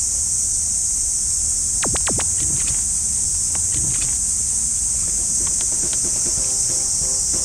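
A dense, continuous high-pitched chorus of insects shrilling from the grass and paddy. A few brief swishes come about two seconds in.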